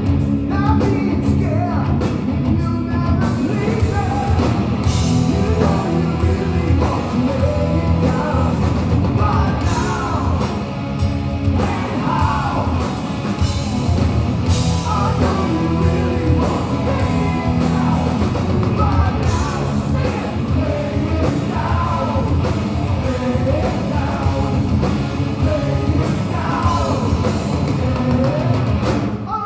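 Live hard rock band playing: a sung lead vocal over distorted electric guitars, bass guitar and drums.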